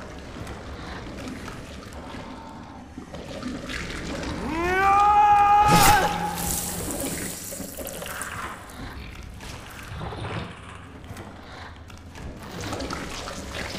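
Film sound effects: a rising cry or screech lasting about a second and a half, the loudest sound here, cut off by a sharp hit, over a low, noisy cave ambience.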